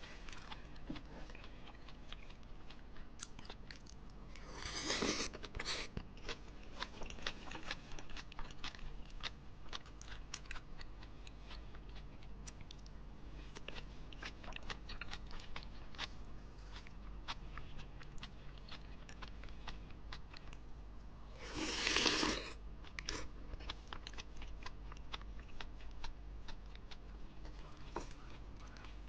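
Close-up chewing and crunching of mouthfuls of yeolmu (young radish kimchi) bibimbap, with small clicks and scrapes of a wooden spoon and chopsticks against a wooden bowl. Two louder, longer noisy bursts stand out, about five seconds in and again about twenty-two seconds in.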